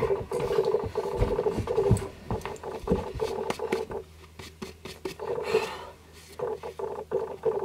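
Two dogs play-fighting, growling in short broken bursts amid scuffles and knocks, mixed with fingernails scraping and rubbing dog fur off a cloth bandana.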